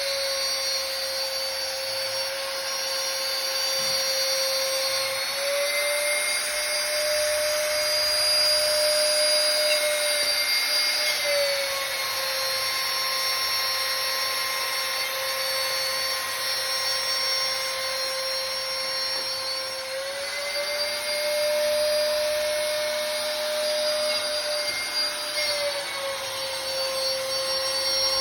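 Spindle of a homemade CNC router running at high speed while cutting aluminium composite panel: a steady whine over a cutting hiss, its pitch shifting slightly up and down a few times as the load changes.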